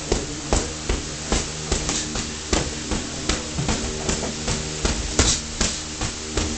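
Sparring with boxing gloves: irregular slaps and thuds of gloved strikes and footwork on the ring mat, about two to three a second, over a steady low hum.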